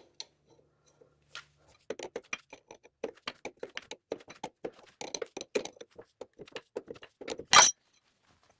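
Wrench clicking steadily, several small metallic clicks a second, as it tightens the flare-nut fitting of a hydraulic hose on a garden tractor's lift cylinder valve. One louder metallic clank comes near the end.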